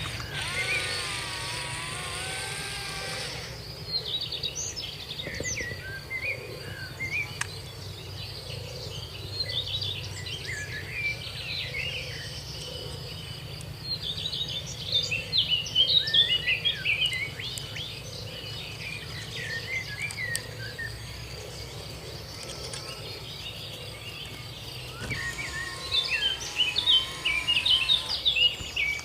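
Several birds chirping and twittering in quick runs, loudest about halfway through and again near the end, over a steady high insect drone and a low hum.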